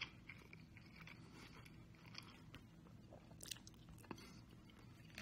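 Faint, close-up chewing and crunching of a mouthful of sesame chicken, with a few small sharp clicks in the second half.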